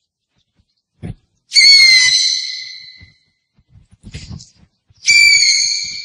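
An owl giving two loud, high-pitched whistled screeches. Each dips slightly in pitch at the start, then holds and fades away over about a second and a half. The second comes about three and a half seconds after the first. Faint low thumps come just before each call.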